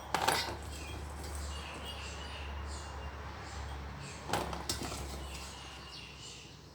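Two brief handling noises about four seconds apart, a second one closely following the later one, over a steady low hum and faint high chirps in the background.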